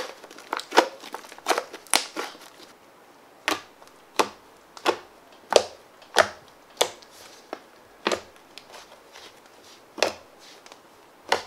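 Fluffy white slime being squeezed, pressed flat and poked by hand, giving short sharp squelching pops, about one or two a second, with a pause of a couple of seconds near the end.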